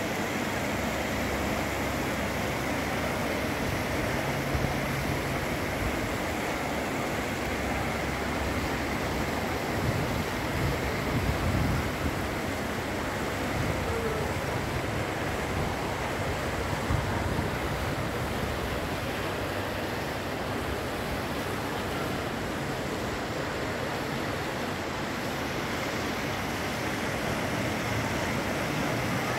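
Wind rushing over the microphone as a steady noise, with a few stronger gusts about ten and seventeen seconds in.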